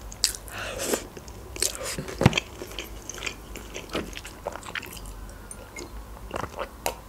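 Chewing and wet mouth clicks of someone eating a spoonful of instant noodles, irregular and scattered, with a sip from a mug near the end.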